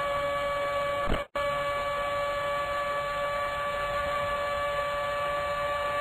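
Formula 1 car's 2.4-litre Cosworth V8 held at full throttle and high revs in seventh gear, heard onboard as a steady high-pitched whine with rushing wind. About a second in the sound cuts out for a split second.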